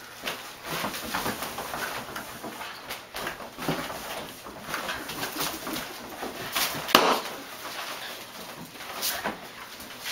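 A dog tussling with rubber balloons: rubbery squeaks and scuffling, with scattered clicks and one sharp loud snap about seven seconds in.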